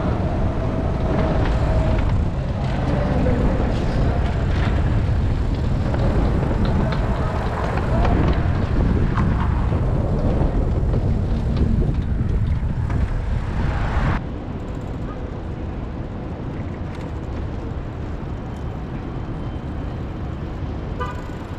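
Wind buffeting the microphone of a camera on a moving bicycle, over city street noise. About fourteen seconds in it drops abruptly to a quieter, steady city hum.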